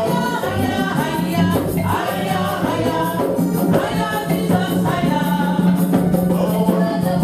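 Church music: voices singing over a steady low bass note and percussion.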